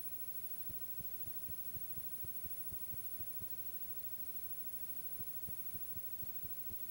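Background noise of a blank video tape: a steady hiss and hum with a thin high-pitched whine, and soft low thumps about four a second that pause for a couple of seconds in the middle.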